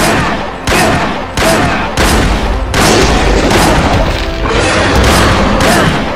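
Loud action-scene sound mix: a run of heavy booms and crashes, about one every two-thirds of a second, over a dense din and music.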